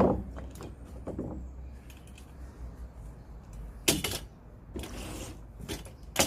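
Dry split firewood being handled, with three sharp wooden knocks (one at the start, one about four seconds in, one near the end) and some rustling between them, over a steady low hum.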